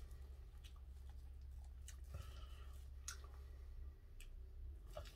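Faint, scattered clicks of chopsticks and a seaweed-wrapped bite of food being handled, over a low steady hum.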